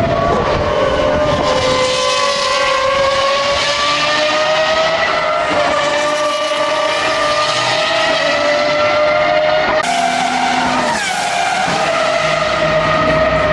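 Hypercar racing engine held at high revs on track, its note climbing slowly; the pitch changes abruptly about ten seconds in, like a gear change.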